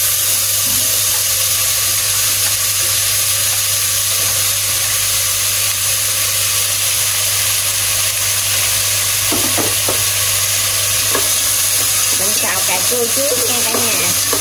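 Chopped tomatoes sizzling as they stir-fry in a hot aluminium stockpot, a steady hiss. A few short knocks and scrapes of wooden chopsticks stirring them come in the second half.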